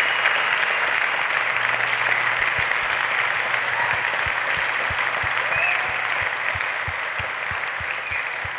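Audience applauding, the clapping steady and slowly fading. About two and a half seconds in, a run of low thuds at about three a second joins it.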